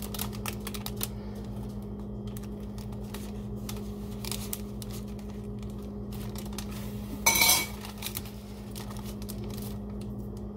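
Metal spoon scraping and clicking as mayonnaise is spread onto a sandwich, with one louder clatter about seven seconds in, over a steady low hum.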